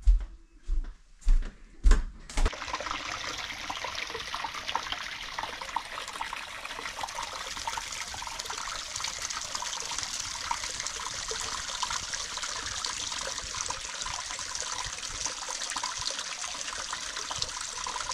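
A few footsteps thud along a wooden corridor. A couple of seconds in they give way abruptly to a steady rush of running water splashing at an outdoor hot spring bath.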